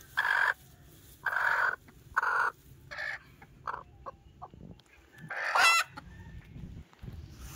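Broody hen sitting on eggs, giving a string of short clucks that get shorter and fainter over the first few seconds. A louder, longer squawk follows about five and a half seconds in.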